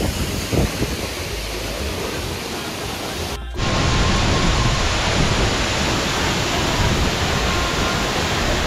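Steady roar of the Materuni waterfall's falling water. It drops out briefly about three and a half seconds in and comes back louder.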